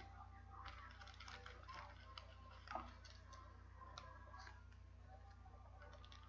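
Near silence: a steady low hum with faint clicks and rustles of trading cards being handled. The loudest tap comes a little under three seconds in.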